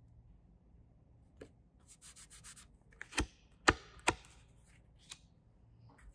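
Stiff card-stock invitation cards handled and slid against each other, with a short papery rubbing about two seconds in. Then three sharp taps close together around the middle, the loudest sounds here, and a lighter tick a second later.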